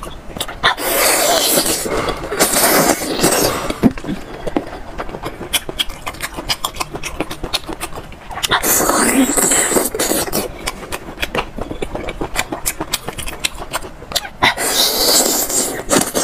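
Close-miked mouth sounds of sea snails in sauce being sucked out of their shells. There are three long, loud slurps, each a second or two: one near the start, one about halfway, and one near the end. Between them come wet chewing and many small mouth clicks.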